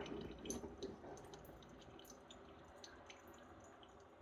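Ninja Pods & Grounds coffee maker brewing: faint scattered drips and ticks of coffee falling into the mug over a low hiss.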